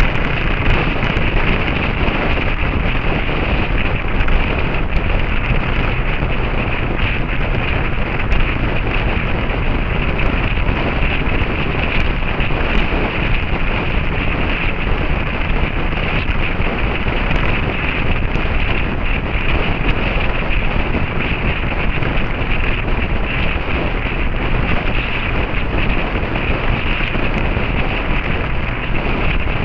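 Steady, heavy wind noise buffeting the microphone of a camera on a motorcycle moving at riding speed.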